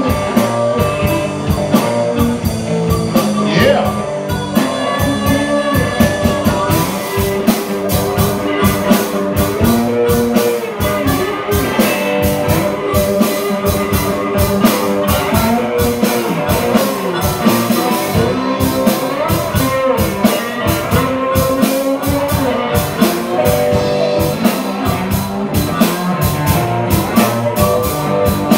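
Live blues band playing an instrumental stretch: electric guitar and drum kit, with a harmonica played into the vocal mic carrying long, bending notes.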